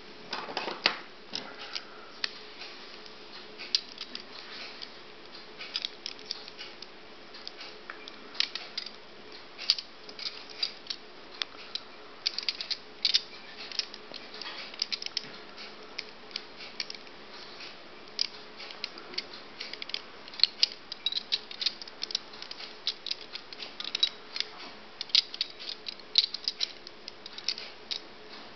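The metal pieces of a Hanayama Cast Vortex puzzle clicking and scraping against each other as it is twisted apart by hand: irregular light clicks and ticks, with a faint steady hum underneath.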